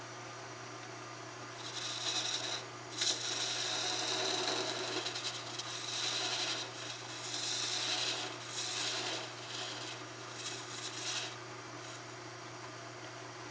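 Sharpened steel pipe, a vacuum cleaner extension wand beveled on a grinder, scraping and shaving spinning wood on a lathe to form a spherical bead. The cut comes in several rasping bursts from about two seconds in until near the end, with one sharp knock about three seconds in as the tool catches. A steady low lathe hum runs underneath.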